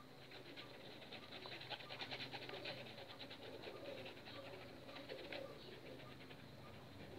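A paintbrush scrubbing and dabbing thick, clumped paint onto the painting in quick short strokes, making a rapid scratchy ticking. A dove coos faintly in the background.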